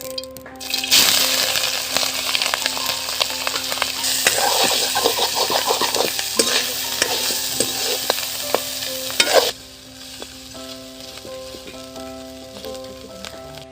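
Food frying and sizzling in a hot pan while a utensil stirs it, with small scrapes and clicks. The sizzle rises about a second in and drops off sharply about nine and a half seconds in.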